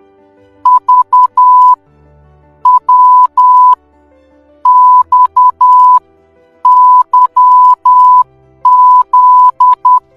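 Morse code sent as a steady beeping tone, short dots and long dashes in five letter groups about two seconds apart, spelling V, W, X, Y, Z: the end of the alphabet. Faint background music runs underneath.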